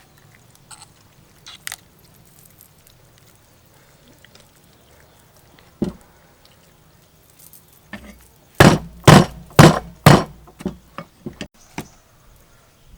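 Chicken being chopped with a knife on a cutting board: a single knock, then four loud chops in quick succession about two-thirds of the way through, followed by lighter taps.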